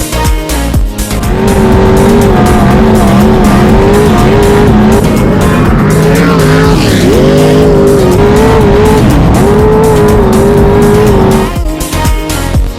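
A V-drive boat's engine held at high revs, with a strong steady pitch that wavers slightly. About seven seconds in the revs drop sharply and climb straight back up.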